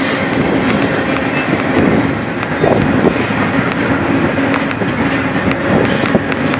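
Norfolk Southern intermodal freight train's container cars rolling past close by: a steady, loud rumble of wheels on the rails with a low steady hum and scattered faint clicks.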